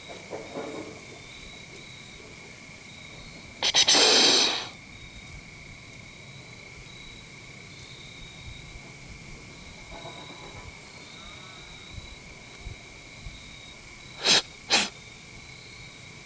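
A whitetail buck's snort-wheeze, its aggressive challenge call: a forceful, drawn-out hiss of air through the nose about four seconds in, then two short, sharp snorts near the end. A steady chorus of crickets runs underneath.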